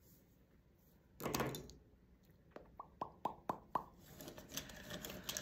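Small handling noises from craft work at a table: a brief soft plop-like sound about a second in, then a quick run of about six light taps, each with a short ring, followed by faint rustling.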